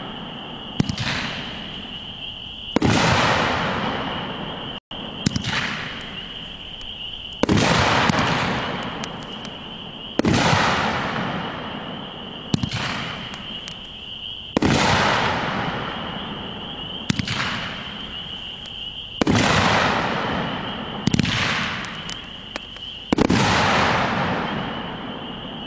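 Pyro Demon Flashpoint 500-gram, 12-shot consumer firework cake firing its 1.5-inch shells one at a time, about every four to five seconds. Each shot is a sharp launch thump, followed about two seconds later by a loud bursting boom that fades slowly.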